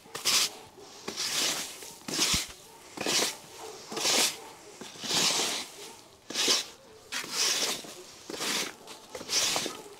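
Push broom sweeping a dirt floor strewn with hay and straw: a steady series of about ten swishing strokes, roughly one a second.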